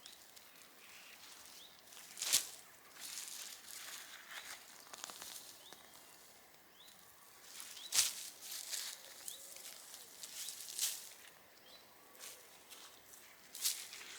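Soil being scraped and rummaged through while digging out potatoes: faint rustling and scratching, with a few short, sharp scratchy crackles spaced several seconds apart.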